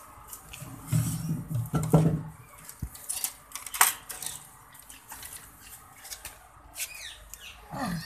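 Wire-mesh cage door in a wooden frame being handled and shut: scattered clicks, knocks and metallic rattles of the mesh and frame, with a couple of duller thumps about one and two seconds in.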